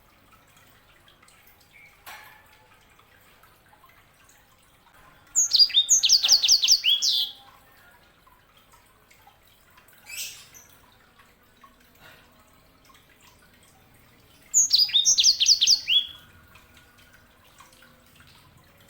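A sanger (small songbird of the canary kind kept by Indonesian bird-keepers) singing two bursts of rapid, high, falling notes, each about two seconds long, about five and fifteen seconds in. A single short call comes in between.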